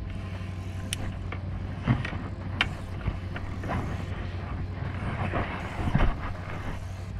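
ATV engine idling steadily, with a few sharp knocks and clunks over it, the loudest about two seconds in and again about six seconds in.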